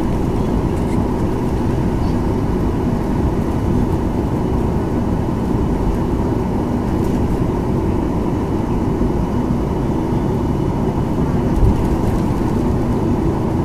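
Steady cabin noise of a Boeing 737-900ER taxiing, heard from inside near the wing: its CFM56-7B engines at low taxi thrust with a low rumble of the airframe and gear, holding level with no spool-up. A single thump near the end.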